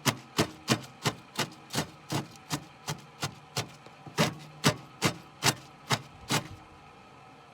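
A utensil repeatedly tapping and scraping in a Pot Noodle pot as the noodles are mashed up, about three sharp knocks a second, stopping about six and a half seconds in.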